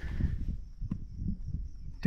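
Footsteps of a person walking over dry, short prairie grass, irregular and low, with one sharp click about a second in.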